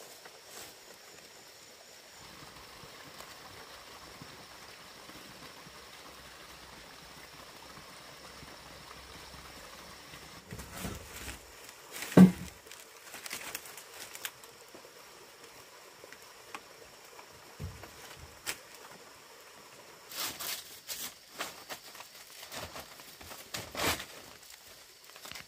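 Dry palm-leaf thatch crackling and rustling in irregular bursts as it is handled and pressed onto a bamboo roof frame, with one sharp knock about halfway through.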